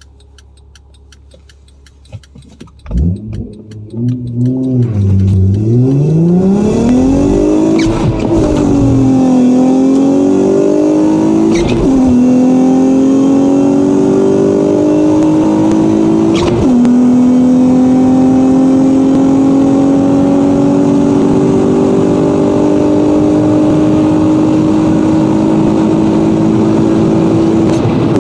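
Acura TL SH-AWD's V6 engine accelerating hard through the gears. The revs climb, dip, then fall sharply at two upshifts before rising slowly through a long pull in a higher gear.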